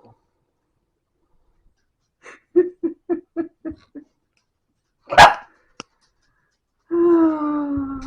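Pet dog vocalising: a quick run of about six short yips, a single loud sharp bark about five seconds in, then a long drawn-out call near the end that falls slightly in pitch.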